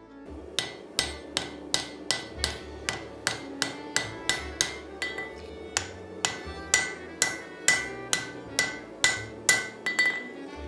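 Hand hammer striking a hot steel axe head on an anvil in a steady rhythm, about two and a half blows a second. Each blow leaves a short ring from the anvil. This is the sound of the axe head being forged by hand.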